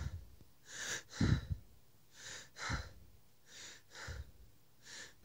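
A person breathing slowly and heavily in and out: about four breaths, each a pair of airy puffs, roughly a second and a half apart.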